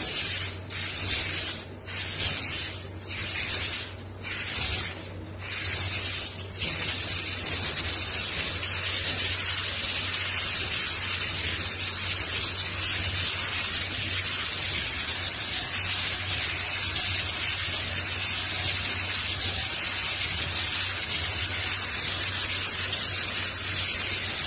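Handheld shower head spraying water into a golden retriever's wet coat, a loud hiss of spray. For the first six seconds it swells and dips about once a second, then runs steadily.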